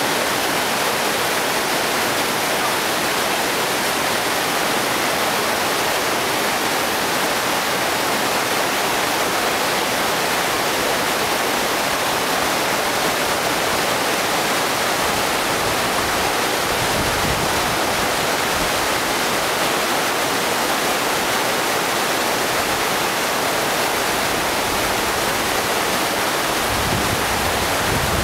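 Steady rush of the Sarca, a fast alpine river: an even, unbroken roar of water. A low rumble swells briefly a little past the middle and again near the end.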